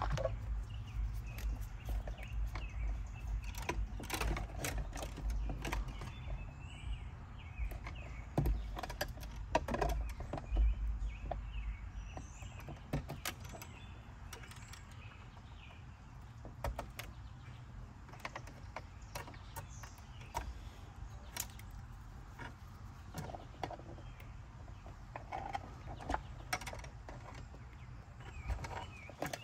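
Scattered sharp clicks and snips of hand wire strippers cutting and stripping electrical cable wires, with the rustle of the wires being handled, over a steady low rumble.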